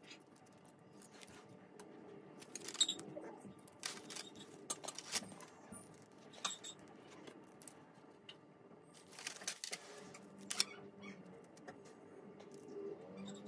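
Hands handling glitter foam sheet petals: scattered soft rustles, rubbing squeaks and light clicks as the foam is bent and pressed, sharpest around three seconds in and again around ten seconds in, over a faint low hum.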